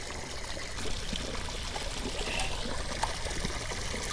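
Bass boat's bilge pump discharge spouting from the hull and splashing steadily into shallow water, the pump emptying a boat that flooded with its drain plug left out.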